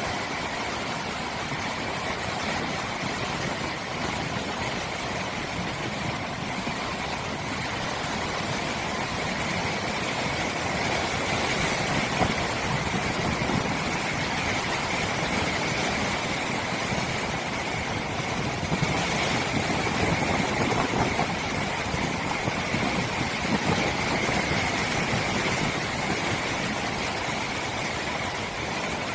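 Rough post-typhoon surf breaking and strong wind on a smartphone microphone: a steady rushing roar that swells a little now and then.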